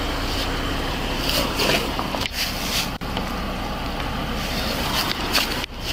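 Clothing rubbing and brushing against a body-worn camera's microphone in short scratchy bursts during a pat-down search, over a steady low rumble.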